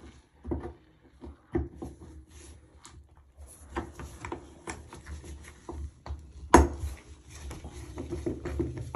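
Screwdriver turning the screw in a chrome bathtub drain stopper: irregular metal clicks and scraping, growing busier after a few seconds, with one sharp knock about six and a half seconds in.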